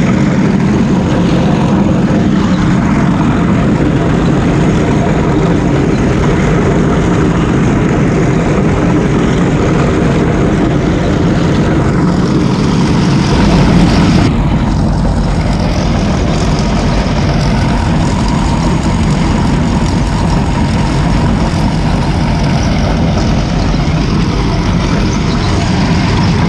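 Air-cooled V8 Deutz diesel of a 1980 Hoes drainage machine, running steadily under load while the machine cuts a drain trench. The sound shifts to a deeper tone about halfway through.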